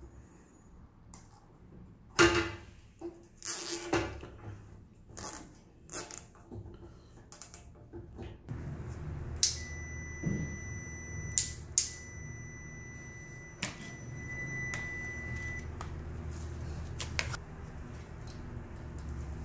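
Scattered clicks, knocks and rustles of gloved hands handling a motorcycle's plastic body panels, wiring connectors and tools. About halfway through a steady low hum comes in, with a thin high tone heard for several seconds.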